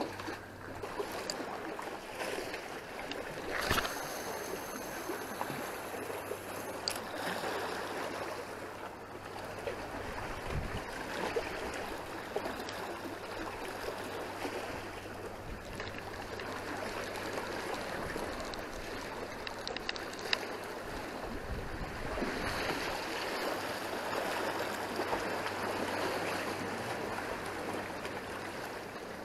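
Sea water washing and lapping among concrete breakwater blocks, a steady sloshing wash. A sharp knock about four seconds in and another about seven seconds in.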